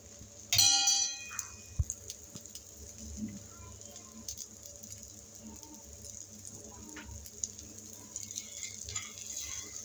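A metal utensil strikes with a short ringing clink about half a second in, the loudest sound, followed by a sharp click. After that the omelette fries quietly on the griddle pan, the oil around its edge sizzling with small scattered crackles.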